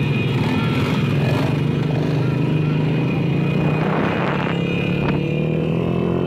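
Small motorcycle engines running steadily as a group of bikes rides along a street, the engine pitch rising a little near the end.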